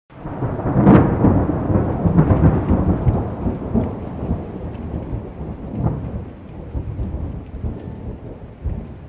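Thunder with rain: a thunderclap about a second in, then a long low rumble that slowly fades, with smaller rumbles near the end, over a steady hiss of rain.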